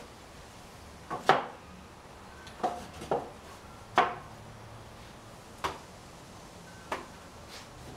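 2x4 lumber boards knocking against a wooden frame as they are shifted and tapped into place, about six sharp, irregularly spaced knocks. The loudest come about a second in and at four seconds.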